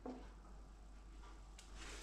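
Faint handling sounds: fingers sweeping chopped green onion across a wooden cutting board and dropping it into a glass bowl, with a few light ticks, one at the start and a couple near the end.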